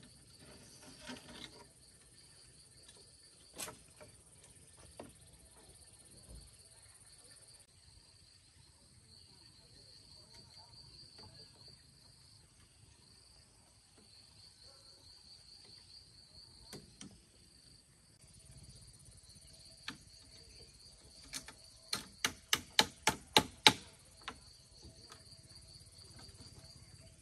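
Insects chirring steadily in a high, pulsing drone, with a few scattered knocks from work on a bamboo frame. Near the end comes a quick run of about nine sharp knocks, about four a second, the loudest sound here.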